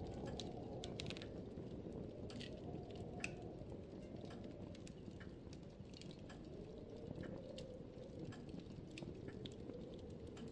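Handling noise from a handheld camera: a faint low rumble with many small, irregular clicks and crackles.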